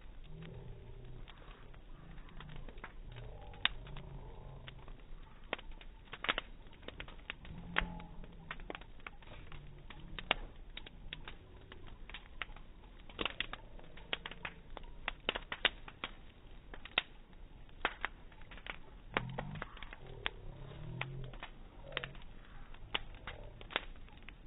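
Bonfire crackling and popping, slowed down in slow motion so that the irregular pops come out deep and drawn out. Low, slurred murmurs, likely slowed-down voices, come and go at intervals.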